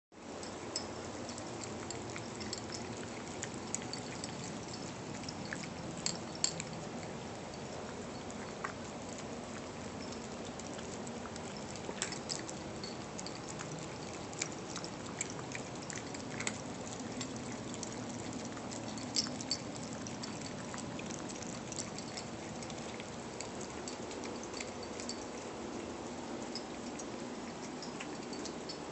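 Several cats eating wet cat food: steady wet chewing with many scattered sharp clicks.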